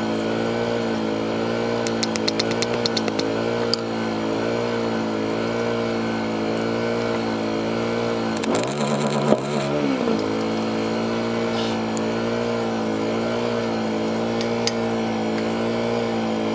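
An engine running steadily, its tone wavering in a slow regular pulse. About eight and a half seconds in, the pitch dips and a brief high hiss sounds for a second or so before the engine settles back to its steady note.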